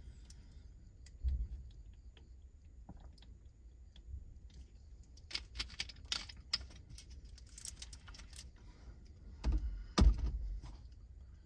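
Plastic drink bottle handled in a car: scattered small clicks and crinkling plastic, thickest in the middle, with two heavier thumps near the end.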